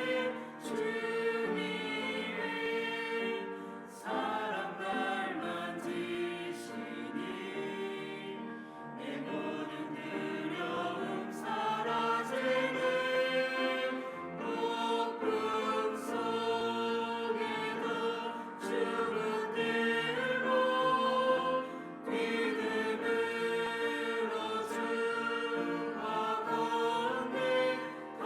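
Church choir singing a praise song in full, sustained chords.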